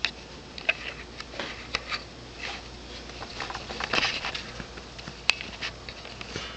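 Camera handling noise: scattered clicks, taps and rustles as a handheld camera is moved about and then settled, with one sharp click a little after five seconds. The dirt bike's engine is not running.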